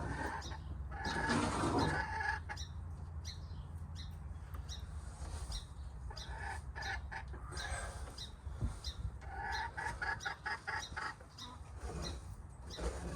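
Backyard hens clucking and calling, with a quick run of short, repeated clucks about ten seconds in.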